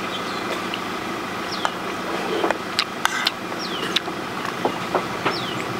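A steady low machine hum like a running engine, with a few short high chirps that fall in pitch and several sharp clicks over it.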